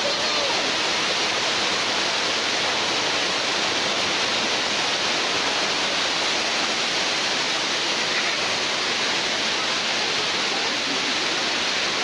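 Water rushing steadily down a dam's sloped concrete spillway, a continuous white-water noise like a waterfall.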